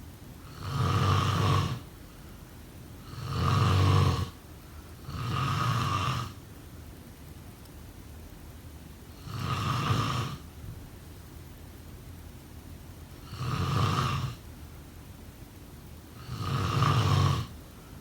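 A person snoring: six loud snores, each about a second long, coming at uneven intervals with quiet breathing gaps between.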